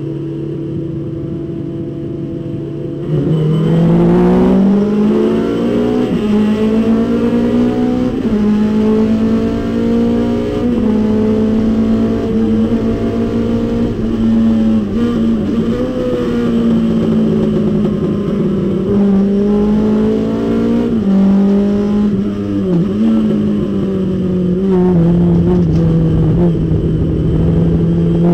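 Datsun 510 race car's engine heard from inside the cockpit. It runs steadily at first, then about three seconds in goes to full throttle, loud, with the pitch climbing as it revs up. It is held high at speed with a few brief lifts off the throttle past the middle, and climbs again near the end.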